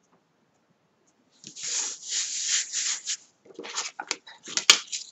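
Hands rubbing and handling cardstock and glued patterned paper on a cutting mat: rustling paper strokes starting about a second and a half in, then shorter scrapes and a sharp click near the end.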